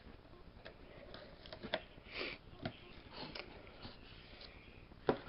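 A shipping package being opened and its contents handled by hand: scattered clicks, scrapes and crinkly rustles of packaging, with a sharp click about five seconds in.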